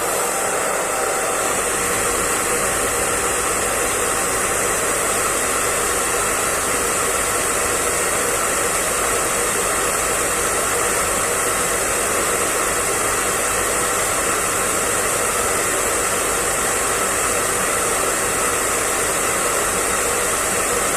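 Hair dryer running steadily: a constant, even rush of blown air with a few faint steady tones in it, unchanging throughout.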